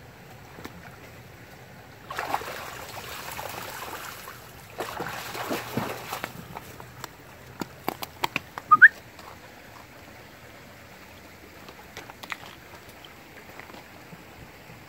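Footsteps through a snowy, rocky stream bed: two stretches of crunching and scuffing, then a quick run of sharp clicks and a short rising squeak, the loudest sound, about nine seconds in.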